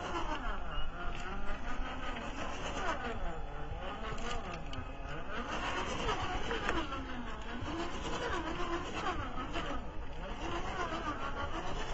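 Brushed electric motor and geartrain of a Traxxas TRX-4 1/10-scale RC crawler whining, the pitch rising and falling over and over as the throttle is worked while it crawls over rocks.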